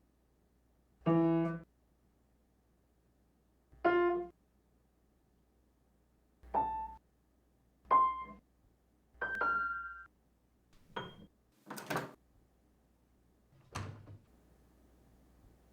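Piano keys pressed one at a time, tentatively: about eight isolated notes and chords with pauses between, each ringing briefly. The last few are shorter and duller, close to thumps.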